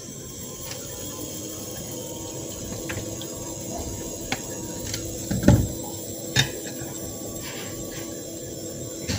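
Faster induction cooktop running just after being switched on: a steady hum with a faint high whine from the hob. Scattered light clicks and one louder knock about five and a half seconds in.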